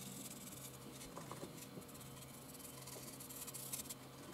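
Faint scratching and patting of a stiff paintbrush dabbing paint onto a 3D-printed plastic terrain piece, over a low steady hum.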